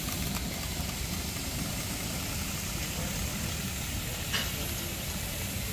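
A small live-steam locomotive on 4.75-inch gauge track, chuffing and hissing steadily as it pulls away. A brief high-pitched chirp comes about four seconds in.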